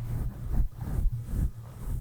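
A soft makeup brush stroked over a microphone: muffled rustling with a low rumble, in several strokes about half a second apart.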